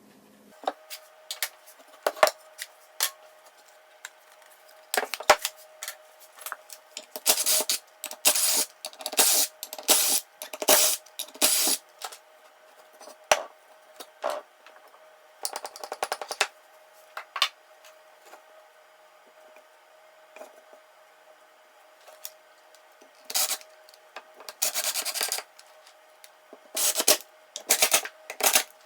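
Bar clamps and a lathe faceplate being taken off a glued-up plywood disc: irregular metal clicks, clinks and scraping or rubbing in bursts, with a faint steady hum underneath.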